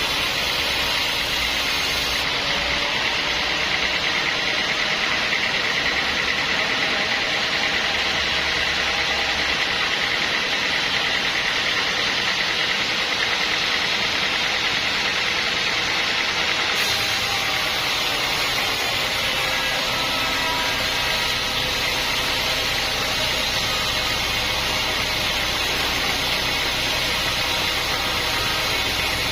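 Sawmill machinery running steadily: a continuous, even mechanical noise with no pauses.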